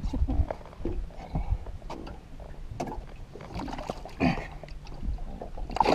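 Irregular knocks and thumps on a fishing boat's deck as a large blue catfish is carried to the gunwale and lowered into the water, then water splashing near the end as the fish is released.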